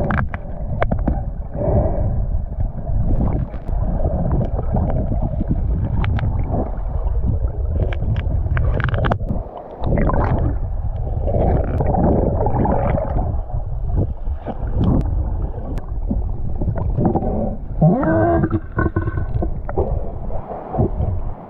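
Muffled underwater rumble and gurgle of fast river current and bubbles, heard through a submerged camera, with scattered sharp clicks and knocks and a short pitched sound near the end.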